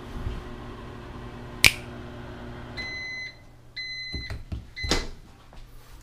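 Whirlpool over-the-range microwave oven running with a steady hum, a sharp click about a second and a half in. The heating cuts off and the oven beeps three times to signal the end of the cycle, and near the end the door latch clunks open.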